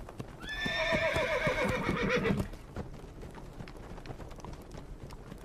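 A horse whinnies once, about two seconds long, starting about half a second in, over the clopping of its hooves on a dirt ground; the hoofbeats go on more faintly after the whinny.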